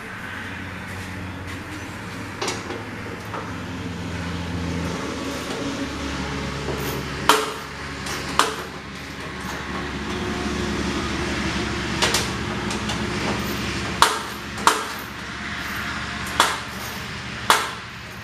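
John Deere 212's single-cylinder Kohler engine running steadily, its speed shifting a few times during carburetor adjustment on an engine that will not run unless choked. About eight sharp metallic clicks come at irregular intervals and are the loudest sounds.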